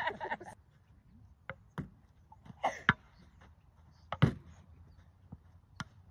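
Hand paddles hitting a ball in a rally, with the ball bouncing: about five sharp, separate knocks, the loudest about four seconds in.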